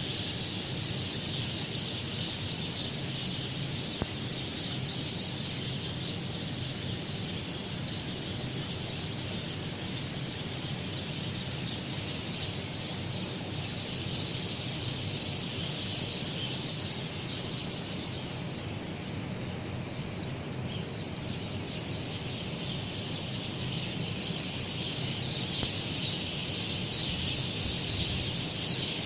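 Morning outdoor ambience: many small birds chirping continuously over a steady hiss, growing slightly louder near the end.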